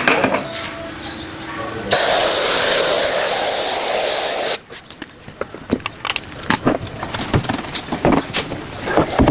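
Pressure washer spray hissing in one burst of about three seconds, starting about two seconds in and cutting off sharply, between scattered clicks and taps.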